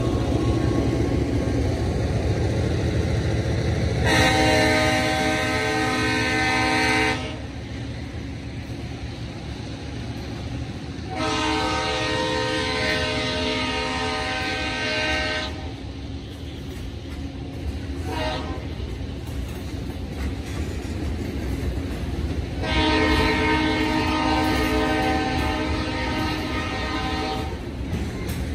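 Ellis & Eastern diesel locomotive No. 37's air horn sounds three long blasts of about three to four seconds each, spaced several seconds apart. Between and under them, a train of covered hopper cars rolls steadily past the crossing with the rumble and clack of wheels on rail joints.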